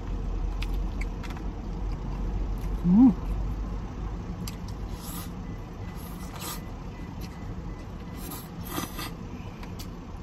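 Road traffic from a busy multi-lane road, heard through the open windows of a parked truck cab: a steady low rumble of passing vehicles, with several short hissing swells later on. About three seconds in, a brief loud rising tone stands out as the loudest sound.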